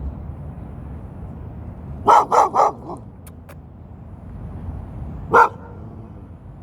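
A dog barking: three quick barks in a row, then a single bark about three seconds later.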